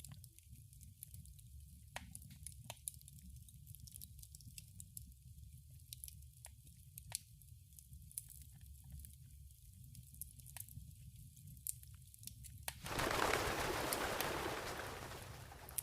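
Campfire crackling: scattered sharp pops and snaps over a low steady rumble. About thirteen seconds in, a louder rushing noise swells up and fades away.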